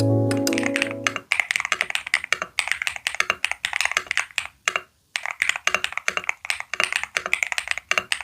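Fast typing on a QK x ATK HEX80 Hall-effect keyboard: dense, clean key clacks, with a brief pause about five seconds in. Background music fades out in the first second.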